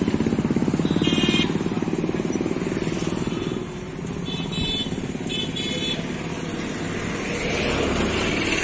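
A motorcycle engine runs close by with a rapid, even pulsing beat that fades after about three and a half seconds, over steady road traffic. Short high-pitched rings sound several times, and another vehicle passes near the end.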